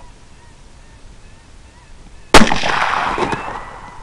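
A quiet stretch, then a single rifle shot a little over halfway through, sudden and loud, its echo rolling away over the next second and a half.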